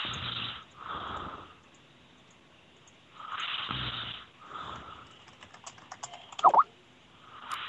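A person snoring, heard over a Skype call: two snoring breaths about three and a half seconds apart, each a louder snore followed by a softer breath. Late on there is a run of quick clicks, then a brief, loud squeak that dips and rises in pitch.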